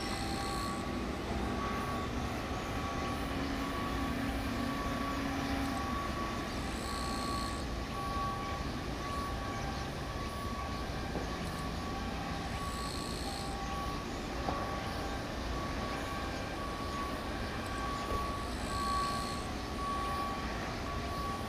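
Steady rumbling background noise of a shipyard and harbour, with a faint beep repeating at an even pace and a short high tone returning about every six seconds.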